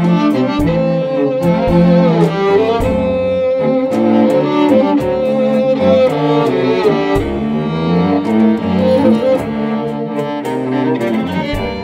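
String quartet of two violins, viola and cello playing a tango, with long held notes over moving lower string lines and short drum and percussion strokes.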